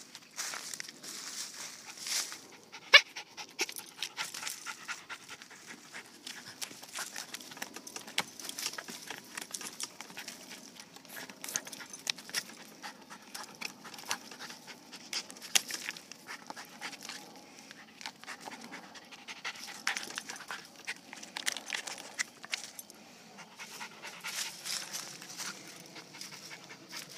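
A Havanese dog panting and sniffing hard at a log, with dry leaves crackling and rustling as it digs and pushes about. A single sharp click about three seconds in.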